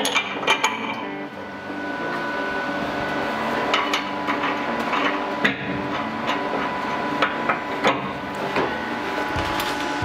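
Irregular metal clinks and knocks of tools against stainless steel pipe fittings as an air-tank manifold is fitted, over a steady background tone.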